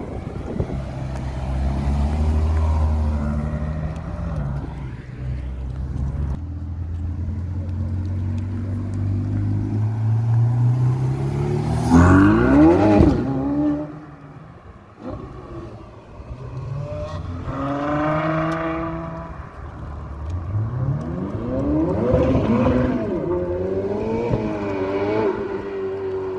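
Ferrari sports-car engines pulling away and accelerating hard, the revs climbing in several runs and dropping back at each upshift. The loudest run peaks about halfway through; two more rising runs follow near the end.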